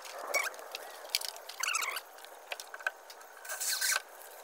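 Metal plumbing strap being handled and fitted around a plastic drum in a wooden frame: light clicks and rattles, a few short squeaky chirps about halfway, and a brief scraping hiss near the end.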